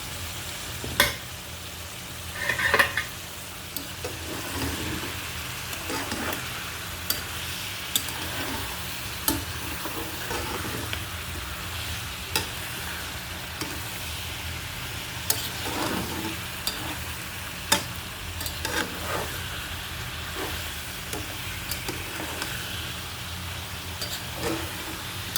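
Mixed vegetables (potato, flat beans, radish, tomato) sizzling in oil in a pan while being stirred and scraped, with frequent sharp clicks of the utensil against the pan. This is the kosha stage, sautéing the vegetables down in their spices.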